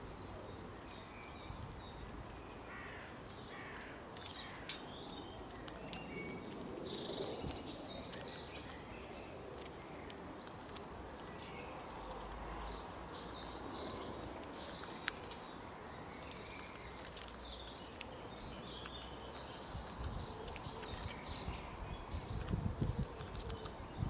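Outdoor ambience of small birds chirping and twittering on and off, over a low rumble like wind on the microphone. There are a few sharp clicks, and some heavier low thumps near the end.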